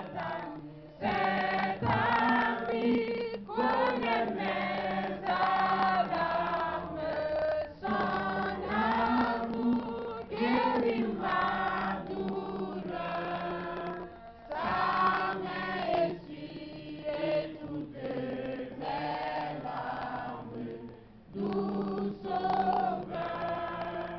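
Church congregation singing a worship song together in sung phrases, with a man at the microphone leading.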